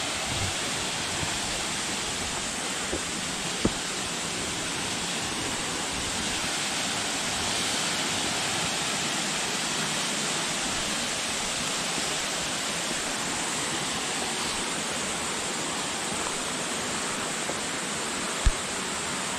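Steady rushing of a small waterfall spilling into a creek pool, with two brief knocks, the louder one near the end.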